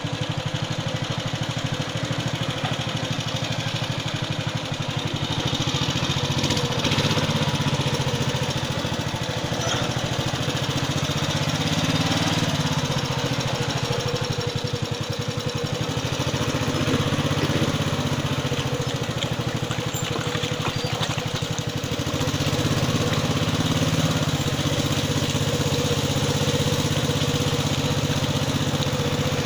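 Long-tail boat engine running steadily under way, its level rising a little about six seconds in and again about twenty-two seconds in.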